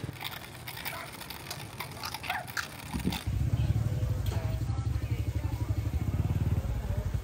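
A small motorbike engine running close by, a low even putter that sets in about three seconds in and stays loud; before it, scattered light clicks and crunches.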